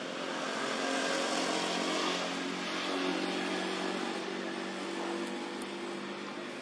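An engine running with a steady hum, growing louder over the first second or two and then easing slightly.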